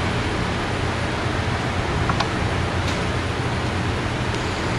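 Steady machine hum and rushing air noise, with a couple of faint light metal clicks about two and three seconds in as test tappets are handled in the lifter bores of a Harley Twin Cam crankcase.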